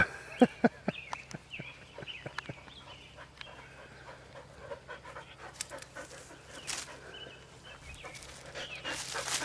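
A dog panting close by, with a few sharp clicks or knocks in the first second.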